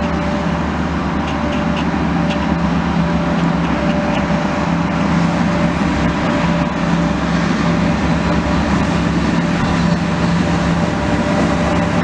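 Diesel multiple unit arriving along a station platform, its diesel engine running steadily under a constant rumble and growing a little louder as the train draws near.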